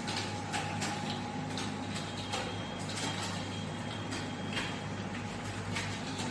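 Computer keyboard being typed on: an irregular run of key clicks, a few a second, over a steady low hum.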